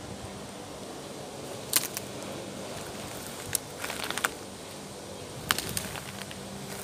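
Handling noise from a fishing rod and reel: a few short sharp clicks and ticks, some in quick little clusters, over a steady outdoor hiss.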